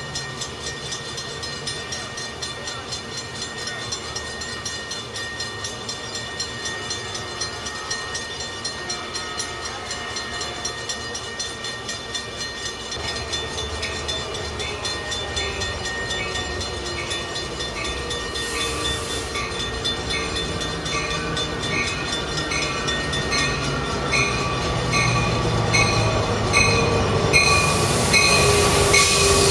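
Crossing warning bell ringing steadily with quick, even strokes as a Metrolink diesel commuter train approaches. The locomotive's engine and the wheel noise grow louder through the second half.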